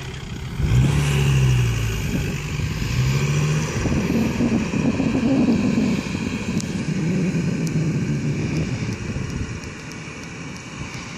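Four-wheel-drive engines revving under heavy load as they climb soft sand, the engine note rising and falling with the throttle, fading off near the end.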